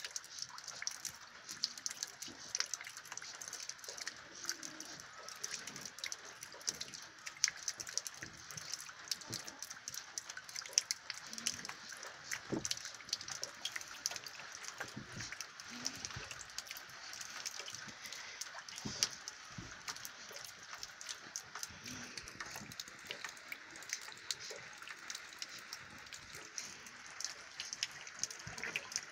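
Steady rain-like hiss with a dense, light patter throughout, and now and then a short, low grunt from the playing puppies.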